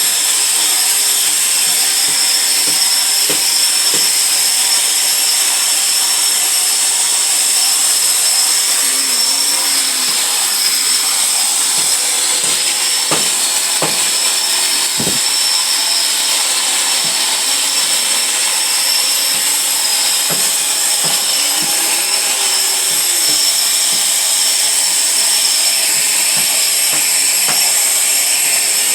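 Terrazzo grinding machine running steadily, a constant high-pitched whine and hiss of motor and grinding, with a few short knocks about halfway through.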